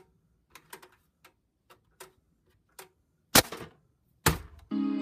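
Small sharp clicks of a radio being handled and fiddled with, a few a second and irregular. Then come two loud knocks about a second apart, and music with guitar starts up just before the end.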